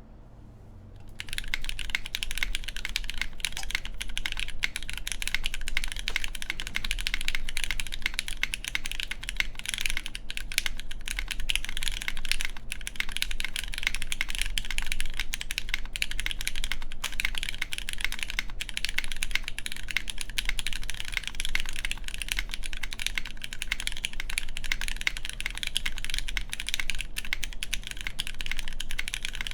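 Continuous fast typing on an Antipode Studio Pneuma Mk.2/60 mechanical keyboard: lubed Cherry MX Black clear-top linear switches in a full aluminium plate, GMK keycaps, with every gasket fitted including the one under the spacebar. Dense key clacks start about a second in after a quiet moment.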